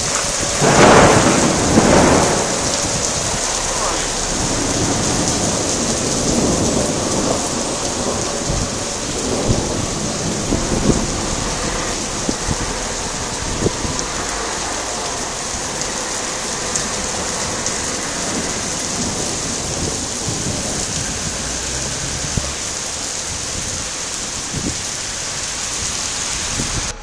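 Heavy rain pouring steadily in a thunderstorm, with loud rolling thunder about a second in and fainter rumbles of thunder after.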